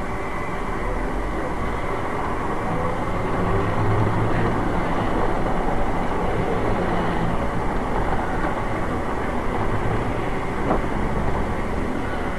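Steady rumble of a moving vehicle, growing louder about three seconds in and easing off again later.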